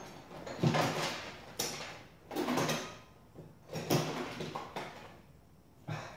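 About five short scraping, sliding sounds, roughly one a second, each starting sharply and fading within half a second.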